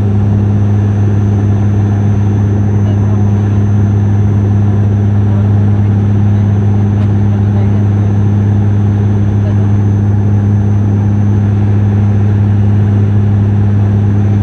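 Turboprop airliner heard from inside the cabin on descent: a steady, loud propeller drone with a strong low hum and airflow rush, unchanging throughout.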